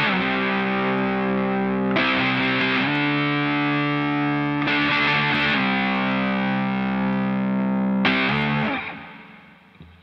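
Electric guitar played through a JOYO Hot Witch, a Triangle Muff-style fuzz pedal: thick, distorted chords left to sustain, each struck anew every two to three seconds. Near the end the last chord is cut short and fades away.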